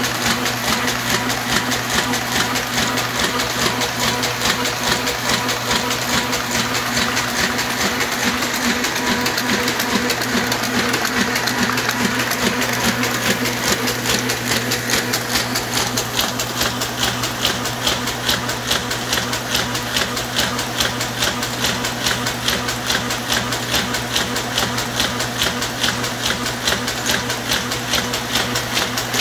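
Hamada 600 offset printing press running: a steady, rapid mechanical clatter from its gears and cams, over a constant low hum.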